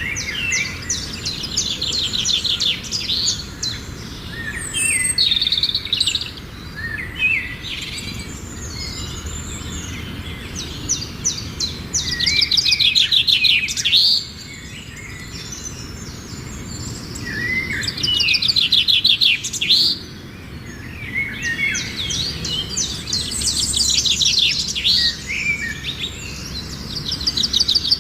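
Small songbirds singing: repeated phrases of rapid high trills and chirps, each a second or two long with short gaps between them, over a steady low background rumble.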